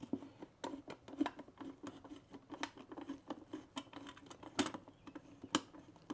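An adjustable metal band clamp being tightened around a ring of taped wooden staves: a run of irregular small clicks and metallic ticks, with a few sharper clicks standing out, over a faint steady hum.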